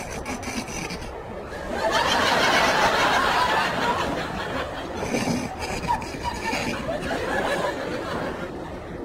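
Studio audience laughing, swelling about two seconds in and then carrying on in smaller waves.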